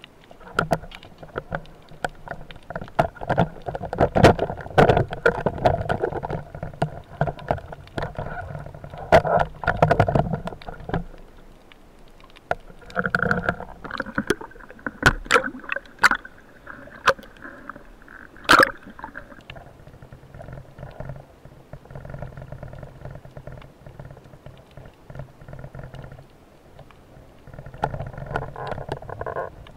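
Water sloshing and gurgling against a waterproof camera housing as a spearfisher swims and dives, muffled underwater, with many small knocks and clicks from the gear. A sharper click stands out about two-thirds of the way in.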